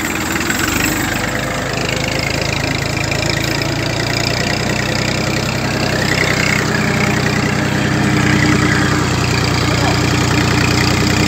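Massey Ferguson 1035 tractor's three-cylinder diesel engine running steadily, heard from the driver's seat while it pulls a seed drill, its note growing slightly fuller partway through.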